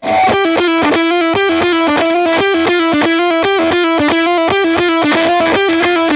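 1960s Yamaha SG-5A 'Flying Samurai' electric guitar played with heavy distortion: a fast picked riff, about five notes a second, circling one repeated note, starting abruptly.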